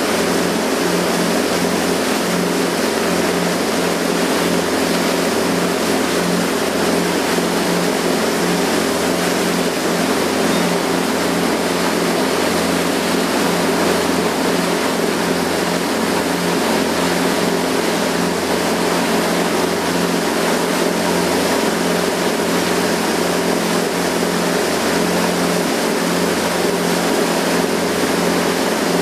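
Tour boat's engine running steadily at cruising speed, a constant low drone with an even hiss of water and wind over it.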